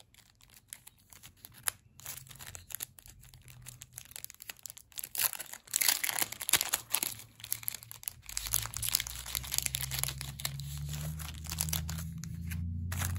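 Clear plastic sleeves and packaging crinkling and rustling as a stack of stickers and cards is handled, in quick irregular crackles that grow busier around the middle. A low steady hum comes in about eight seconds in.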